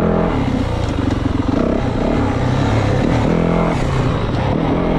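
2024 Yamaha WR450F enduro bike's single-cylinder four-stroke engine being ridden, its revs rising and falling with the throttle, climbing twice.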